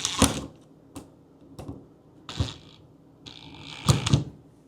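Small metal and plastic clicks and knocks as a fridge door handle's mounting stud is fitted and screwed in on the opposite side of the door, with a short scraping rattle and two knocks near the end.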